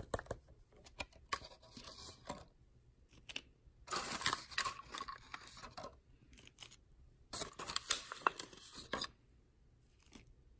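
Thin plastic candy-kit packaging crinkling, snipping and scraping as it is cut and handled, in three bursts with short quiet gaps between.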